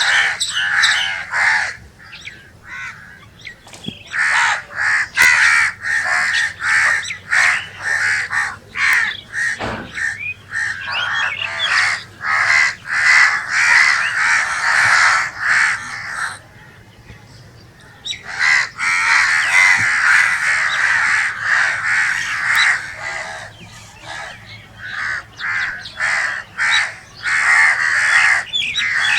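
Crows cawing, many harsh caws in quick, overlapping succession, with a pause of about two seconds a little past the middle before the calling resumes.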